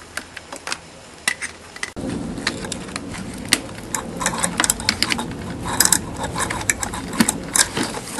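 Irregular clicks and rattles of small plastic plugs and wires being handled and pushed together on a model plane's receiver and camera wiring. The clicks come sparsely at first and more thickly after about two seconds, over a louder background.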